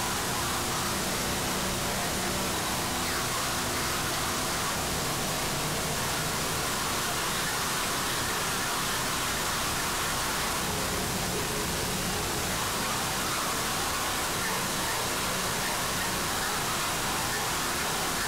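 Noise music: a dense, unchanging wall of static hiss filling the whole range, with faint steady low tones beneath it.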